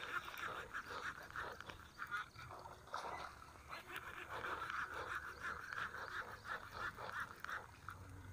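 Faint animal calls in a rapid, pulsing chatter.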